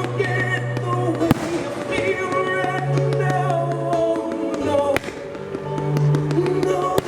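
Music with held notes and a bass line, over fireworks exploding: sharp bangs about a second in, around five seconds in and at the very end, with fainter crackling between.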